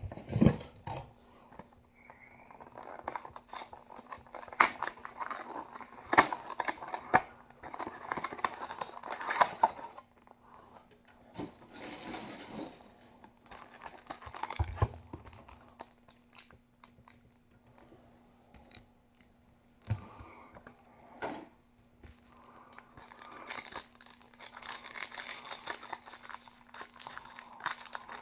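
Foil trading-card booster-pack wrappers being opened and crinkled by hand, with irregular crackles, clicks and rustling that come in busy stretches separated by quieter pauses.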